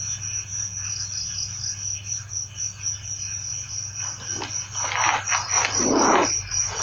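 Insects, likely crickets, trilling steadily at a high pitch over a constant low hum. About four seconds in, a run of irregular rustling noises begins and grows louder.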